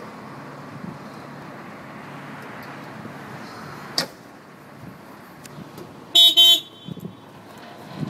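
Case SV185 skid steer's diesel engine idling steadily, with a single sharp click about halfway through. Near the end a horn gives two short, loud toots.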